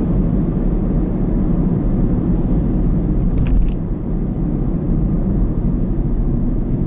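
Steady low rumble of a car driving at a constant speed, tyre and engine noise heard from inside the cabin, with one brief click about halfway through.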